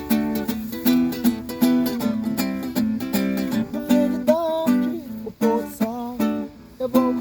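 Music: a plucked string instrument strummed quickly and evenly over held chords. A wavering, gliding melody line comes in about halfway.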